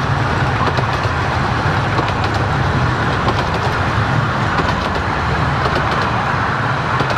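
15-inch-gauge miniature railway passenger coaches rolling past close by: a steady rumble of wheels on the track, with scattered sharp clicks.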